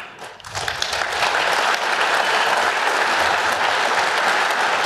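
Audience applauding; the clapping swells over about the first second and then holds steady.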